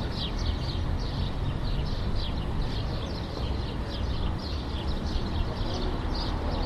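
City street ambience: many small birds chirping busily over a steady low rumble of distant traffic. A faint steady hum comes in near the end.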